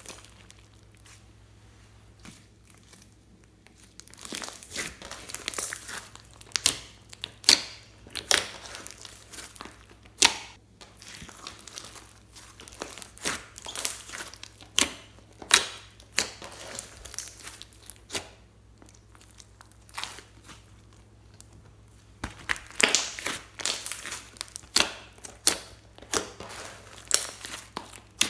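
Slime being mixed and kneaded by hand: wet squishing and crinkling with many sharp pops and clicks as air pockets burst. It is quiet for about the first four seconds, then the pops come thick and irregular.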